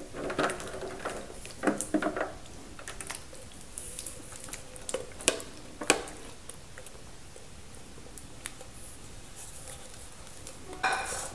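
Canned baked beans sliding and plopping out of tin cans into a disposable aluminium foil pan, with scattered sharp taps of the cans against the pan. The sounds are busiest in the first six seconds and then thin out to a few knocks.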